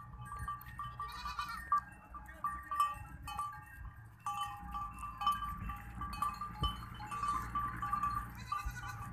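A herd of goats on the move, with many short goat bleats repeating over a low rumble.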